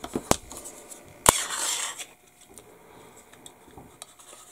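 Two sharp clicks of hobby tools and plastic model parts being handled on a cutting mat, about a second apart. The second is louder and is followed by brief rustling.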